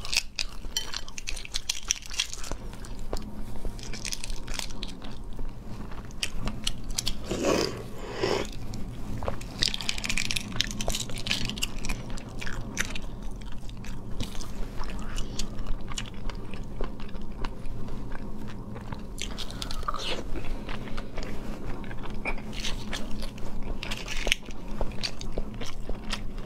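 Boiled eggshells crackling and snapping as they are peeled by hand, with close-miked clicks of fingernails on shell and bouts of chewing. A steady low hum runs underneath.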